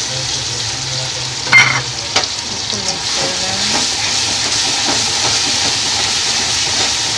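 Ground onion, garlic and chili paste sizzling in hot oil in a kadhai as a spatula stirs it, with a sharp clack of the spatula against the pan about a second and a half in and a few lighter knocks after.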